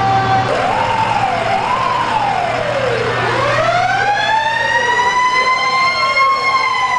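Fire department ambulance's electronic siren wailing: several quick up-and-down sweeps, then one long slow rise that holds high and begins to fall near the end. Fainter up-and-down sweeps overlap it in the second half.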